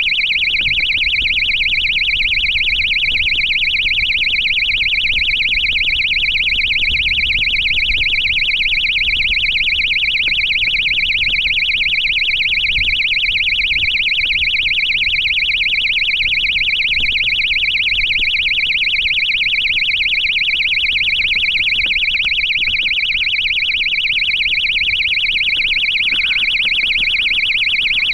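Electronic beeper aboard an amateur rocket sounding a continuous high-pitched tone with a rapid pulsing flutter, over a low rumble of handling or wind noise.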